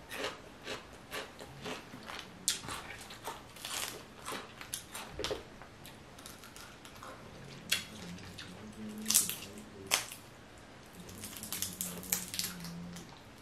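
Close-up eating sounds of a saucy seafood boil: wet lip smacks, chewing and sucking sauce off fingers, and the cracking and peeling of shellfish shells, heard as a scatter of short sharp clicks and smacks.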